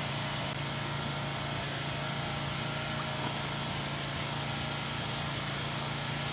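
A steady mechanical hum with one constant low tone and an even hiss, unchanging throughout, like a motor running without a pause.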